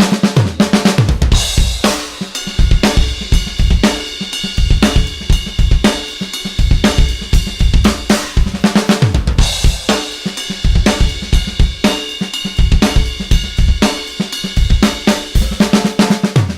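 A Tama Starclassic Bubinga drum kit played in a steady, busy groove: bass drum, snare, hi-hat and Zildjian cymbals hit continuously, with ringing cymbals over the beat.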